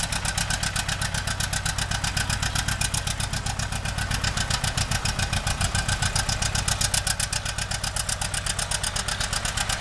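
John Deere 830 two-cylinder diesel tractor working under load, pulling a drag harrow, its engine giving a steady, rapid popping beat.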